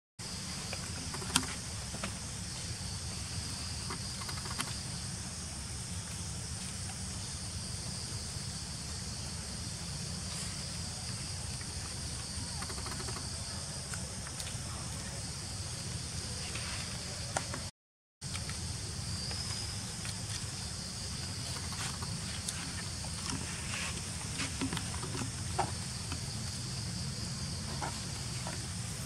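Outdoor ambience: a steady high insect drone over a low rumble, with scattered small clicks. The sound drops out briefly about two-thirds of the way through.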